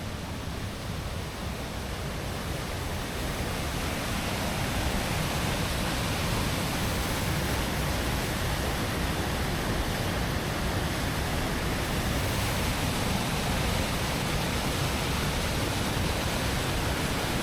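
Steady rushing water of a large waterfall, growing louder over the first few seconds and then holding even.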